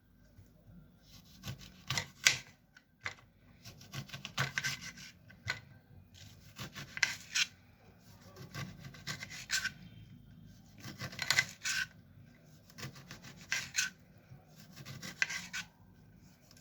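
A knife peeling a lemon: the blade scrapes and cuts through the rind in groups of short rasping strokes, coming every couple of seconds.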